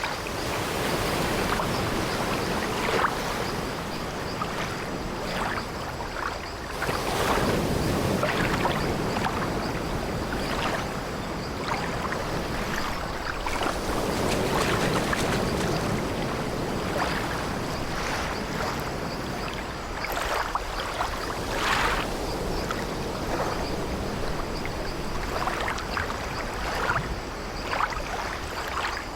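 Sea waves washing in slow swells around an old wooden ship, with short creaks and knocks of its timbers now and then.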